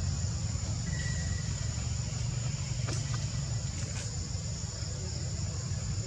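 Outdoor ambience: a steady high-pitched insect drone over a low, steady rumble, with two faint clicks about a second apart in the middle.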